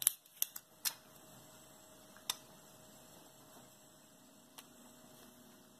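Sharp clicks and taps from a fingertip working a GoPro Hero 6 Black action camera: a quick run of four or five in the first second, then single clicks about two and a quarter and four and a half seconds in, over a faint steady hum.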